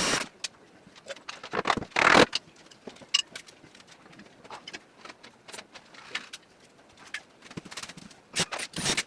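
Carpentry work noises: scattered short knocks and clicks, with a louder scraping burst about two seconds in and another cluster of knocks near the end.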